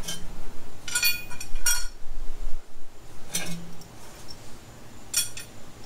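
Metal parts clinking as they are handled during exhaust work under the car: about four short, separate clinks, some with a brief ringing tone.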